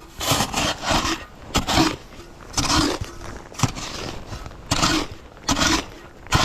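Footsteps crunching in deep snow, about eight heavy steps at an uneven pace of roughly one a second.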